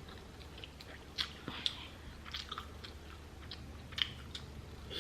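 A person chewing seafood, with soft scattered clicks and smacks of the mouth.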